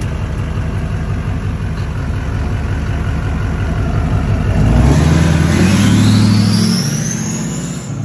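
LLY Duramax 6.6 L V8 turbodiesel in a lifted Chevy Silverado rumbling, then pulling away about four and a half seconds in. A loud turbo whistle climbs steeply in pitch as the engine spools up: an aftermarket 64 mm, 10-blade turbo whose whistle is made louder by aftermarket intake piping under the hood.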